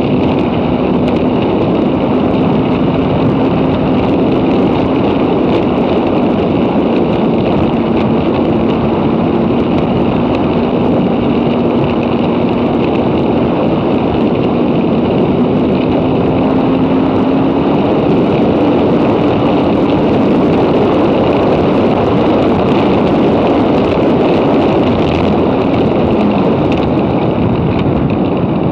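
High-performance jet ski engine running hard at high speed, close to its top speed of about 90 mph, with a dense rush of wind and water. Its pitch holds steady, climbs a little about two-thirds in, then drops near the end.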